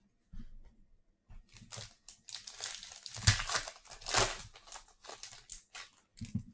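Crinkling and tearing of a foil trading-card pack wrapper being ripped open and handled, with a sharp crackle in the middle.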